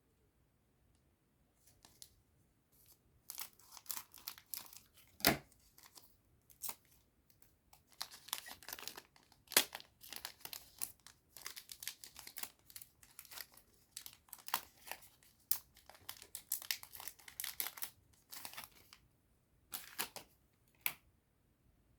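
A trading-card booster pack wrapper being torn open and crinkled by hand: irregular crackling and tearing with a few sharp snaps, stopping briefly near the end.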